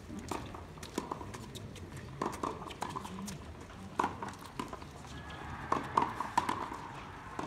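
Tennis balls being hit back and forth by rackets and bouncing on a hard court: a series of sharp, irregular pocks, a few to a second, from more than one pair of players.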